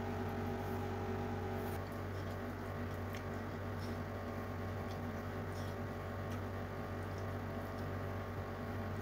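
Eating by hand: soft wet squishes and small clicks of fingers mixing rice on a plate, and chewing, over a steady low electrical hum.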